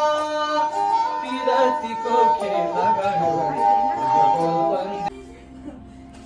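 Nepali sarangi, a bowed folk fiddle, playing a melody of held notes with sliding ornaments. It cuts off suddenly about five seconds in, leaving a quiet low hum.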